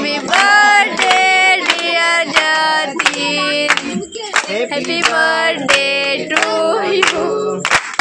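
Voices singing a song, with hands clapping in time. Near the end the singing stops and the clapping turns quick and dense.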